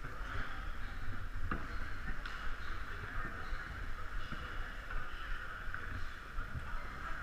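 Hockey rink ambience: a steady hall noise with low rumble, broken by a few short sharp knocks about one and a half and two seconds in.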